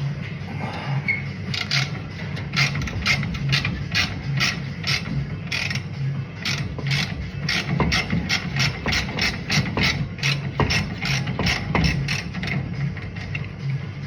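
Hand ratchet wrench clicking in quick runs, about three clicks a second with short pauses, as suspension bolts are turned.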